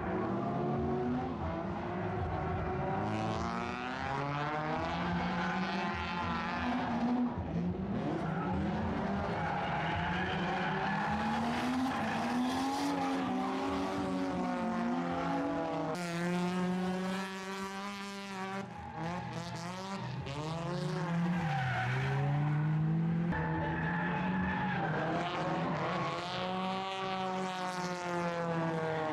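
Drift cars' engines revving up and down, with tyres squealing and skidding as the cars slide. It comes as several short passages joined by abrupt cuts.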